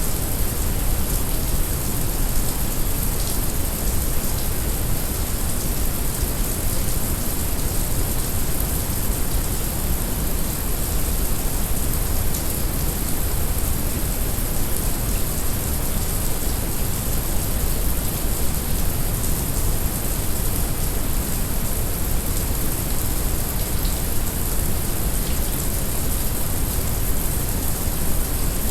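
Heavy rain mixed with brown noise: a steady hiss of rain over an even, deep noise, with a few faint drop ticks.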